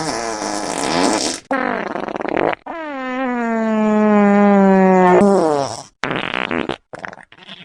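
A string of fart sound effects. Two short rough ones come first. Then a long, loud fart holds a low steady pitch for about two and a half seconds, sagging slightly and ending in a falling slide. A quick run of short blasts with gaps between them follows near the end.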